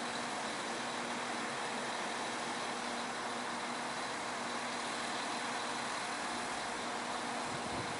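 A diesel train running past at steady speed: an even, continuous rumble and rush of noise with a faint engine hum.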